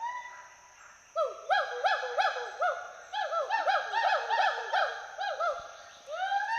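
Western hoolock gibbons whooping: after a short pause, a fast series of rising-and-falling whoop notes starts about a second in, comes thick and overlapping through the middle, and thins out near the end.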